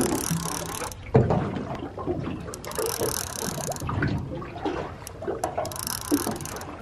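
Water slapping and sloshing against the hull of a small aluminium boat, with a sharp knock about a second in, while a fishing reel is wound in against a hooked fish.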